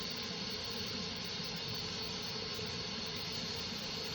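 Steady hiss of warm tap water running from a faucet, an even rush with no breaks.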